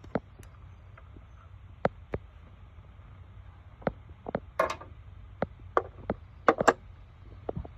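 Irregular sharp clicks and knocks of hand tools and engine parts being handled while the thermostat housing is worked loose, with a quick cluster of louder clacks about two-thirds of the way in.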